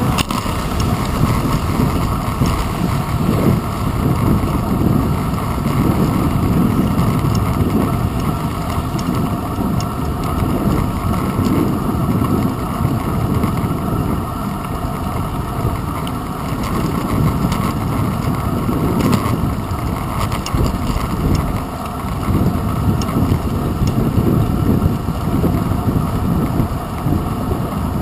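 Steady low rumble of wind and road vibration on a handlebar-mounted GoPro Hero 2 while a bicycle rides along a paved path.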